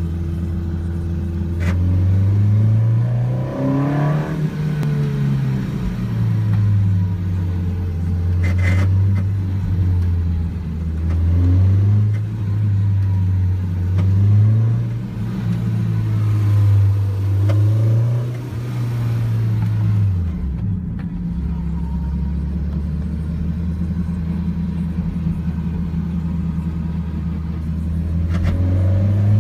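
Toyota 2ZZ four-cylinder engine in an MR2 ZZW30, revved lightly up and down several times, settling to a steady idle for several seconds and rising again near the end. It runs with a rattling/buzzing from behind the passenger seat that the owner cannot locate: not the fuel pump, which he has already replaced.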